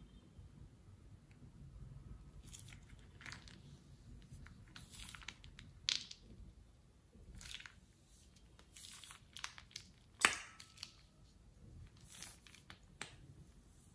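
Fingers squishing and pulling wet, sticky slime in a glass bowl: faint, irregular sticky crackles and squelches, with sharp pops about six seconds in and, loudest, about ten seconds in.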